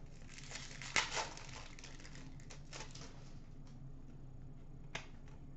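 Wrapper of a 2015-16 Upper Deck O-Pee-Chee Platinum hockey card pack crinkling, and the cards inside rustling as they are handled. The loudest crackle comes about a second in, and there is a single sharp click near the end.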